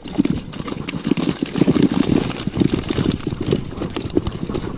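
A catch of live fish being tipped from a mesh keepnet into a plastic bag: a rapid, irregular clatter of fish flapping and slapping against each other, with the net and bag rustling.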